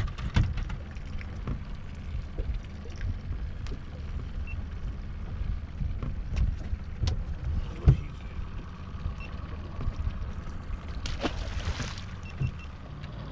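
Scattered knocks and thumps in a small fishing boat while a pike is handled over the side, over a steady low rumble. About eleven seconds in, a hooked fish thrashes at the surface beside the boat with a splash lasting about a second.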